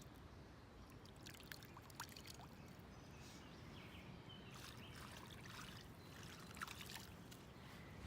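Faint trickle of a small stream, with a few small scattered ticks and rustles over it.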